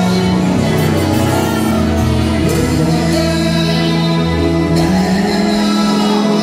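Gospel worship music with held sustained chords and a sung vocal line over them.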